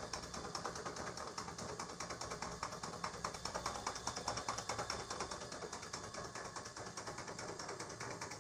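Worn electric donkey water pump running with a loud, fast, steady rattling clatter, the noise of a pump in bad condition that needs a full overhaul.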